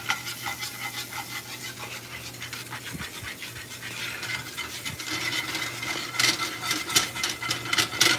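A metal spatula scraping and stirring across a cast-iron skillet while flour-and-butter gravy sizzles in it; the scrapes come quicker in the second half.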